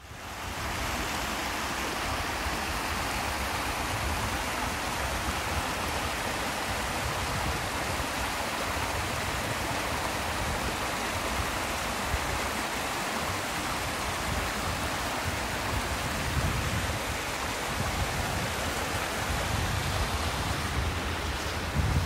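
Steady rush of water falling down a small two-tier waterfall about 7 m high.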